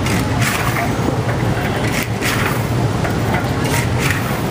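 Roasting chestnuts and hot dark grit being scraped and turned by hand in a large wok with a long-handled paddle, a rasping shuffle with each stroke, repeated every second or so. A steady low rumble of street traffic runs underneath.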